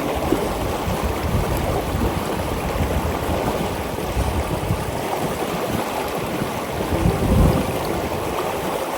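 River water rushing steadily, with a low rumble that swells briefly about seven seconds in.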